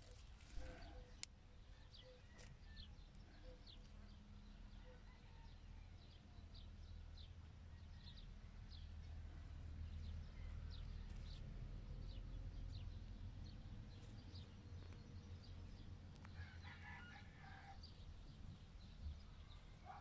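Faint outdoor ambience over a low rumble: a small bird chirps repeatedly, and about sixteen seconds in a chicken calls once in the distance for a second or two.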